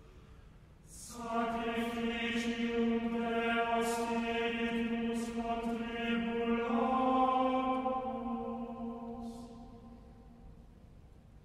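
Background music: a sung chant on one long held note that steps up slightly in pitch about two-thirds of the way through, then fades out near the end.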